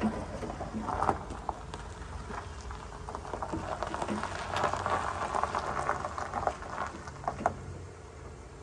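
Irregular small metal clicks, scrapes and rattles of a 10 mm bolt and door-handle hardware being worked by hand inside a truck door panel while the bolt is being started in its thread.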